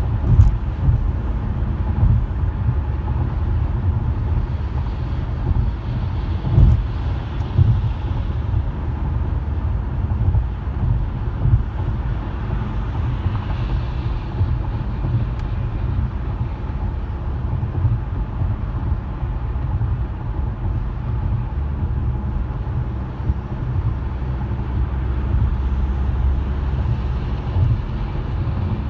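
Car on the move: a steady low rumble of road and engine noise, with a few brief thumps, the loudest about half a second in and again around six and a half seconds in.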